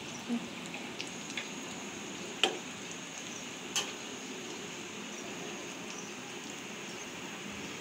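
Fish roe fritters deep-frying in hot oil in a pan: a steady sizzle with a few sharp pops, the loudest about two and a half seconds in.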